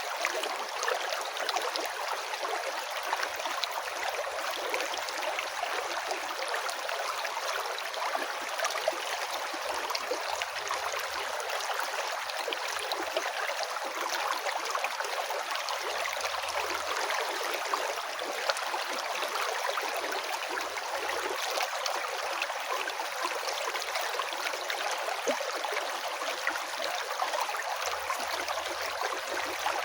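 River water flowing, a steady rushing of water with no break.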